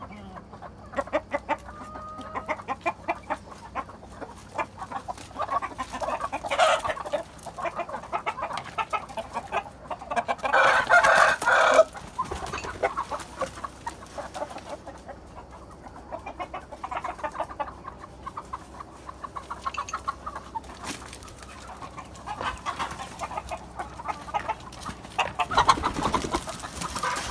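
Chickens clucking and calling steadily in short repeated notes, with one loud call of about two seconds around ten seconds in, a rooster crowing.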